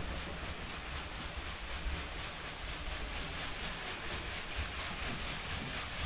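Waterwheel turning with water falling from it while its piston works the furnace's blast pipe: a steady, gentle mechanical and water noise with a low rumble underneath.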